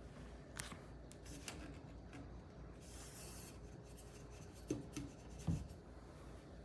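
Faint rubbing and handling noise with a few light clicks, then two soft low knocks about a second apart near the end.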